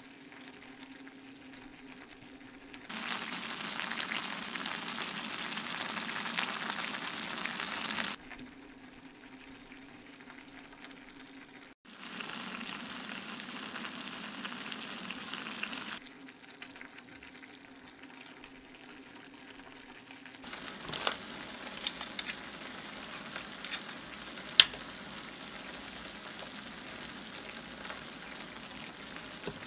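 Bacon and mushrooms sizzling in a cast-iron skillet over a gas camping stove, heard in several short cut stretches of hissing. Scattered sharp metal clicks and clinks come in the last third, with one loud click near the end.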